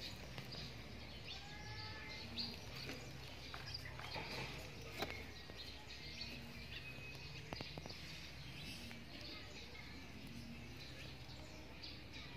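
Quiet outdoor background with scattered short bird chirps and a few small clicks.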